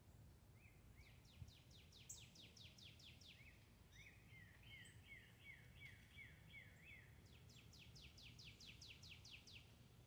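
Northern cardinal singing, faint: a fast series of steeply falling whistled notes, then a slower run of lower, hooked notes, then another fast falling series near the end.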